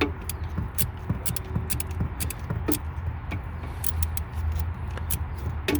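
Irregular sharp metallic clicks and taps of hand tools working a coolant-hose clamp loose, over a steady low rumble.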